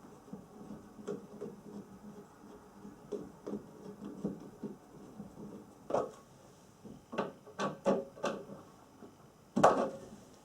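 Hand screwdriver driving screws into a wooden chair: irregular clicks, scrapes and light rubbing of metal on wood, with several sharp knocks of wood parts being handled, the loudest near the end.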